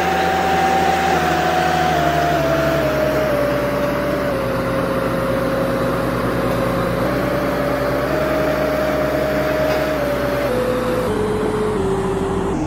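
Sakai SV515D vibratory road roller running as it drives on a dirt road: a loud, steady engine and machine noise. A strong tone within it steps down in pitch, rises again midway, and drops lower near the end.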